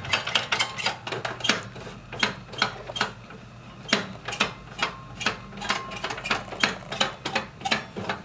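Photocopier paper-feed rollers being turned and rubbed by hand with a damp cloth: irregular plastic clicks and rattles, a few a second.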